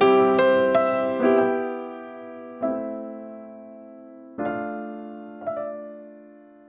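Gentle background piano music: slow chords and single notes struck a few at a time, each ringing out and fading.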